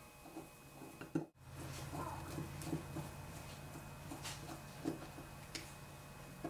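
Faint clicks and small taps of a screwdriver and steel screws on the aluminium body of a Weber ICT carburetor as the accelerator pump housing is screwed down. A low steady hum comes in after a short dropout about a second in.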